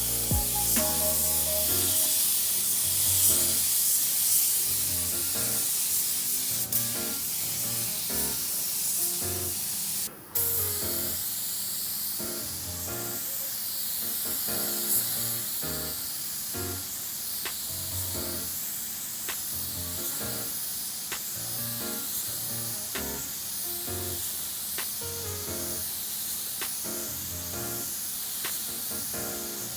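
Air spray gun hissing steadily as primer is sprayed, under background music with a steady beat; the sound breaks off for a moment about ten seconds in.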